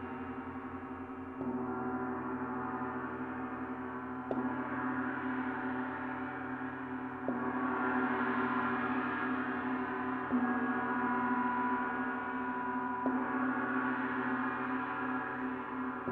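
Planet-tuned gong played with soft strokes about every three seconds. Each stroke swells a ringing that carries on unbroken between strikes.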